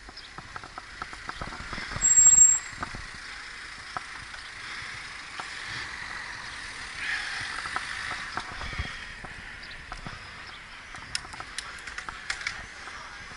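Bicycle braking hard from speed to a near stop, with wind and tyre noise on the bike-mounted camera. About two seconds in, a brief high-pitched brake squeal is the loudest sound. A few light clicks and rattles near the end.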